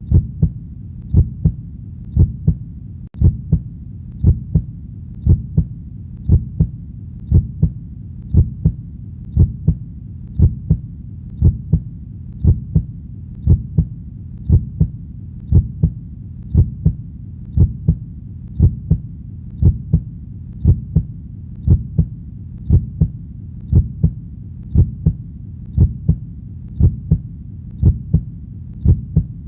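Heartbeat: steady paired lub-dub thumps, about one beat a second, over a low rumble. There is a brief dropout about three seconds in.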